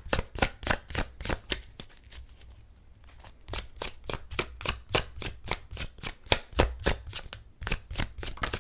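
A tarot deck being shuffled by hand: a quick, rhythmic run of card slaps and taps at about four to five a second, softer for a moment around two to three seconds in.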